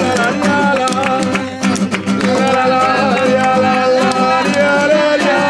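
Nylon-string classical guitar strummed in a flamenco-like Latin style, with a man singing over it in long held notes.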